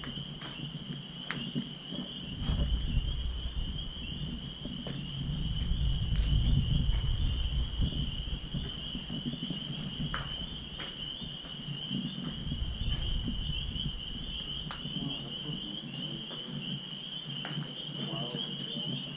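A steady, high-pitched chorus of small calling animals keeps up without a break. Scattered footsteps scuff on the concrete, and a low rumble rises between about two and eight seconds in.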